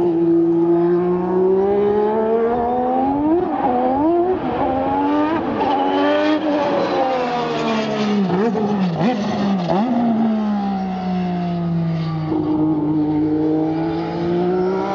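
The 1.5-litre twin-turbo Honda V6 of a McLaren MP4/4 Formula One car running hard on a circuit. Its note climbs as it accelerates, wavers up and down, then dips and rises sharply several times about eight to ten seconds in before settling lower.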